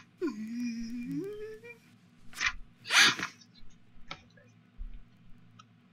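A person's voice: a drawn-out wordless hum that rises in pitch over about a second and a half, then two short breathy bursts, like a snort of laughter, about two and three seconds in.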